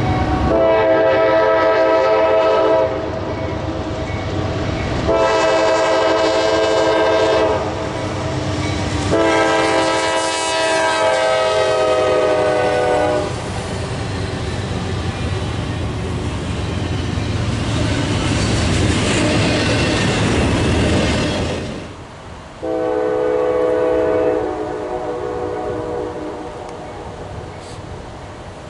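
A locomotive's multi-chime air horn sounds three long blasts, the third sliding down in pitch as the train passes. The rumble and wheel noise of the passing train follow, then after a sudden break a fourth, shorter horn blast and the noise fading away.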